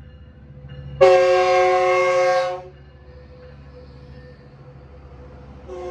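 Metrolink commuter train's locomotive horn sounding one loud chord for about a second and a half, starting about a second in, then a short toot near the end, over the steady rumble of the train rolling past the platform.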